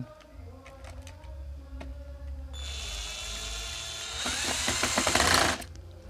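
Power drill with a screwdriver bit driving a screw into a Bluetooth speaker's plastic casing. About halfway through, a loud whir starts, grows louder for about three seconds, then cuts off suddenly.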